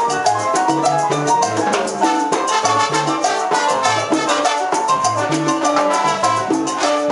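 Live salsa band playing: trombone and trumpet over congas, timbales and a repeating bass line.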